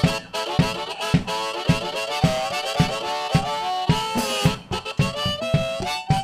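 Blues band playing an instrumental break live: a lead instrument plays bending, sliding notes over a steady drum beat of about two hits a second, with bass underneath.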